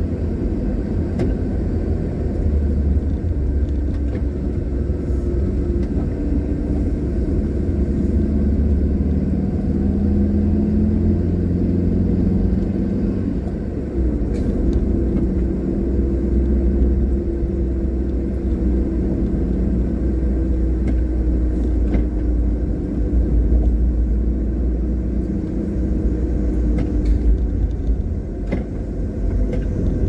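Car driving along a paved road, heard from inside the cabin: a steady low rumble of engine and tyres, with the engine note drifting gently up and down.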